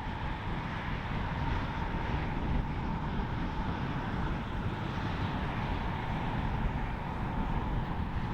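Jet airliner engines running steadily, an even roar with a faint high whine held on one pitch, mixed with wind rumbling on the microphone.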